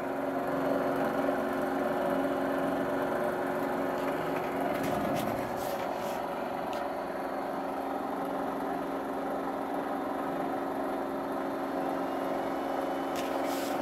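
Home-built Bedini-style pulse motor generator running: a steady mechanical whir with several constant humming tones.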